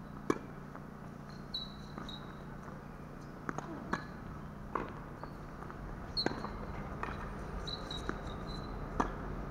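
Tennis ball being struck by rackets and bouncing on the court during a rally: a handful of sharp pops, irregularly spaced a second or a few apart. Short high chirps sound between them.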